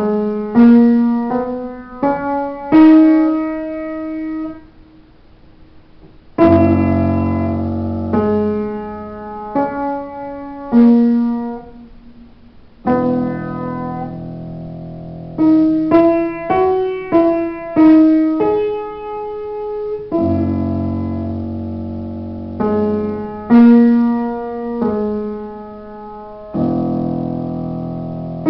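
An upright piano played solo: a melody of struck single notes, with full low chords coming in every few seconds and a short pause about five seconds in.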